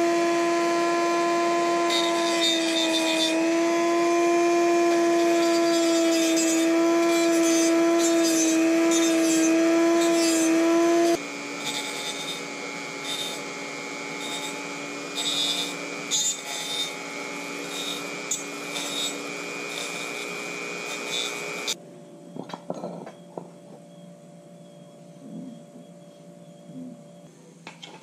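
Handheld high-speed rotary tool with a small abrasive disc running with a steady high whine while grinding a metal coolant pipe, with short scratchy bursts as the disc bites. About eleven seconds in the whine drops to a lower, quieter pitch. About two-thirds of the way through it stops, leaving scattered clicks and knocks of metal being handled.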